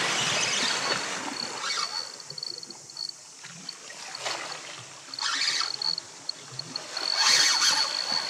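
Spinning reel's drag buzzing in several bursts with a high whine as a hooked kingfish pulls line off the reel.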